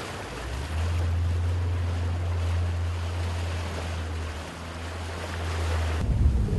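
Wind buffeting the microphone, a heavy low rumble over a steady rushing noise. The rumble swells about a second in and drops away just before the end.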